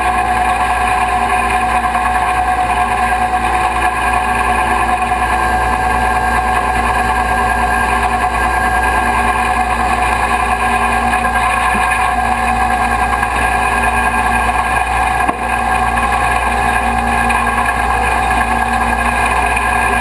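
Rollback tow truck's winch pulling a wrecked car up the tilted bed: a steady mechanical drone with a steady whine above it, unchanging throughout.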